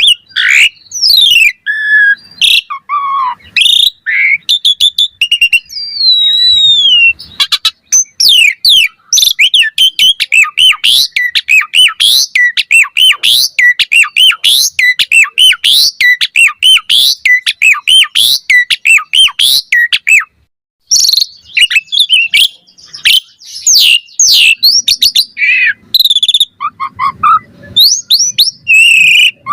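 Asian pied starling (jalak suren) in full song: a long, fast string of varied whistles, rising and falling sweeps and harsher notes, densest and most rapid through the middle, with one short break about two-thirds of the way through.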